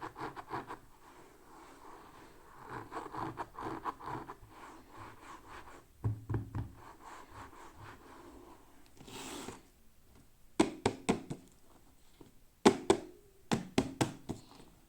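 Hands unboxing small toys: soft rustling and handling of the packaging, then clusters of sharp clicks and knocks in the last few seconds.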